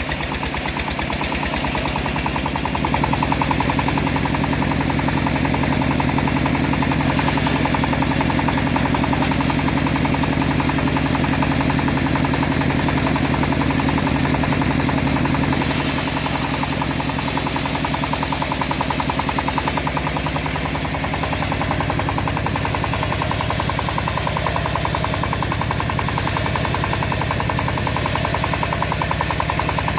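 Engine driving a homemade bandsaw, running steadily with a fast, even chugging, while the high hiss above it shifts every few seconds.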